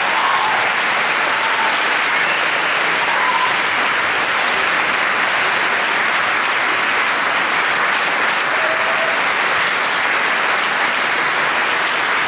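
Audience applauding steadily, a dense even clapping that holds throughout.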